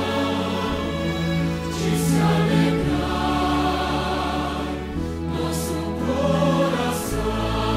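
Choir singing with instrumental accompaniment: long held chords over a steady bass, changing every two seconds or so.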